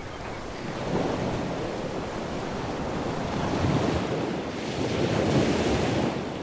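Sea waves and wind buffeting the microphone: a steady rushing noise that swells a little about a second in and again later on.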